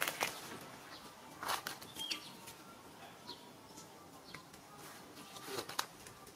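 Scattered soft rustles and clicks of dry leaf litter as a mother monkey and her nursing newborn shift about, with a couple of brief high chirps.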